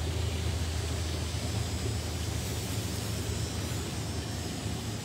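Steady rush of running water from an enclosure waterfall, with a deep, even rumble beneath it.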